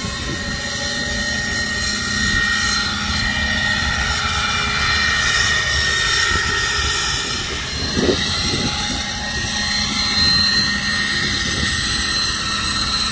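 Large electric RC scale helicopter, powered by a 12-cell LiPo pack, flying: a steady high whine from its motor and drive that wavers slightly in pitch, over the noise of the rotors.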